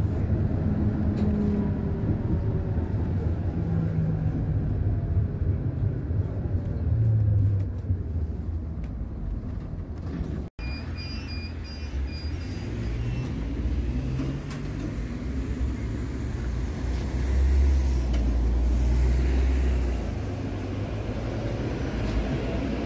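A Konstal 105Na tram's DC traction motors and gearing, heard first from on board, where the gear whine falls in pitch as the tram slows. After a sudden cut there is a series of short beeps. The tram then pulls away with a low rumble, and its whine begins to rise near the end.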